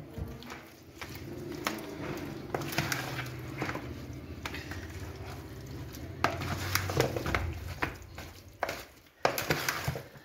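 Chicken pieces being mixed by hand into a spice marinade in a bowl: irregular wet squelches with sharp clicks and taps against the bowl, over a steady low hum.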